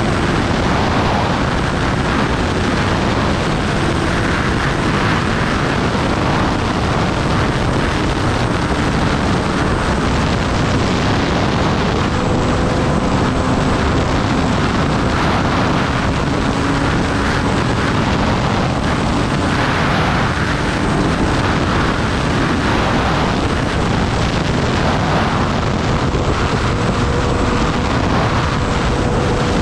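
Kawasaki Ninja ZX-10R's inline-four engine running on the move, under a steady rush of wind on the microphone. The engine note is faint beneath the wind and shifts in pitch a few times as the speed changes.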